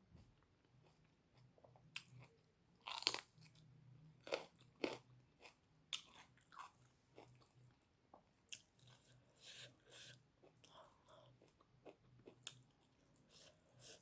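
Close-miked eating: food chewed in the mouth with scattered crunches and wet clicks, the sharpest about three seconds and five seconds in.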